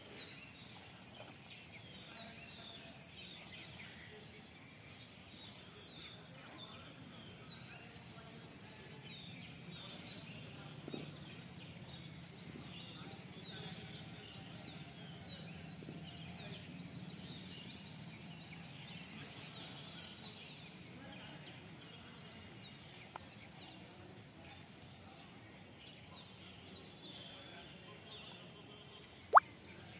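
Faint outdoor ambience with many small bird chirps and calls throughout over a low steady hum, and a single sharp snap near the end.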